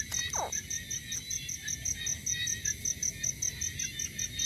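Crickets chirping in a steady, even rhythm of about four chirps a second, over a constant high insect drone. A short falling squeak comes about half a second in.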